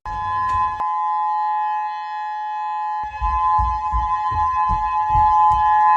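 Steady two-tone emergency alarm sounding without rising or falling in pitch. Irregular low knocks and rumbling join in about halfway through.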